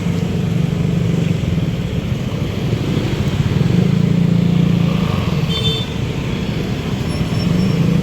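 Motor vehicle engine running steadily in slow, jammed road traffic. A short, high-pitched beep a little past halfway through.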